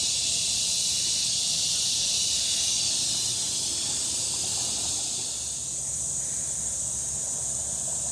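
Dense, steady chorus of crickets (kuliglig) shrilling high, thinning slightly a little past the middle.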